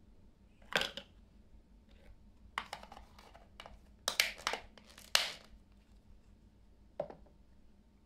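Hard plastic toy tea-set pieces clacking against each other and the tabletop as they are handled: one clack about a second in, a run of quick clatters in the middle, and a last click near the end.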